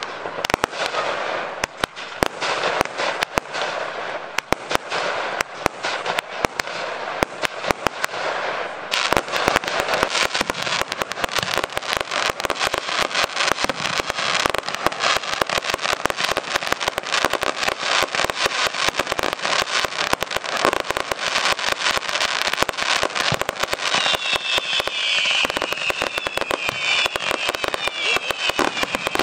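Aerial fireworks display: a continuous crackle of small bursts with many sharp bangs, growing denser about a third of the way in. Near the end, a run of short sliding whistles joins the crackling.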